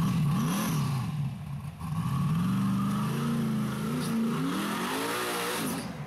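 Rock bouncer buggy's engine revving up and down on light throttle to keep it from stalling. It fades about one and a half seconds in, picks back up at about two seconds, and runs on with rising and falling revs.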